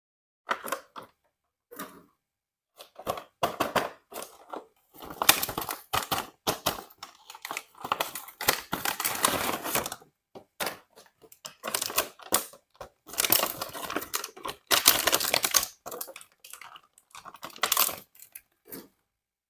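Toy unboxing handling: plastic packaging crinkling and tearing, with irregular clicks and taps of plastic toy parts, in several busy stretches separated by short pauses.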